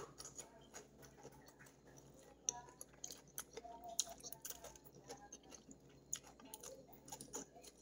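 Faint, irregular chewing of a mouthful of raw shredded cabbage salad, with small wet clicks from the mouth.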